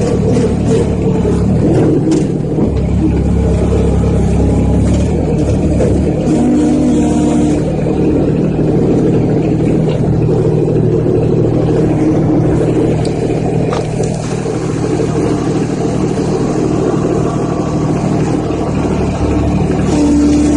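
Skid steer loader's engine running steadily, its pitch shifting a few times as the revs change.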